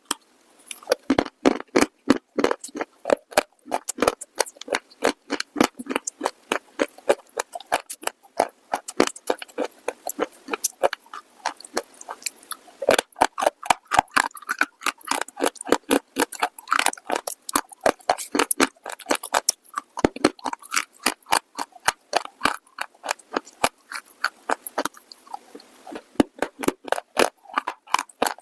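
Brittle baked clay being bitten and chewed: a dense run of sharp crunches and crackles, several a second.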